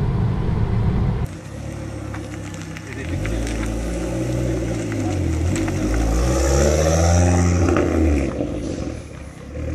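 Ford Focus RS Mk2's turbocharged 2.5-litre five-cylinder engine pulling away and revving, rising and falling in pitch several times, loudest and climbing about six to eight seconds in, then easing off. The first second is steady road and engine noise heard from inside a following car.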